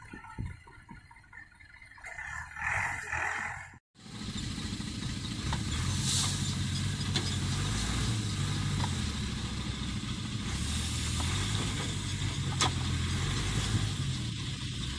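Diesel engine of a sugarcane grab loader running steadily, its pitch wavering slightly as it works, while it swings cane into a truck's trailer; a few sharp clicks stand out. The sound is quieter and mixed at first, cuts out briefly about four seconds in, then the engine is heard steadily.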